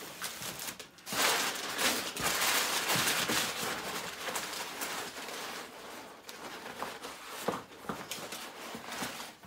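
Brown kraft packing paper crinkling and rustling in uneven spurts as hands dig through it inside a cardboard box.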